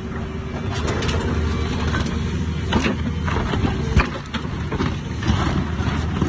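Large excavator with a rock ripper boom and arm working rock: the diesel engine runs steadily under irregular crunching and knocking as rock is broken, with one sharp, loud knock about four seconds in.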